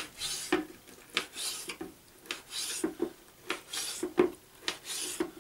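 Kitchen knife slicing a herring fillet into pieces on a plastic cutting board: repeated short scraping strokes with taps of the blade on the board, about two a second.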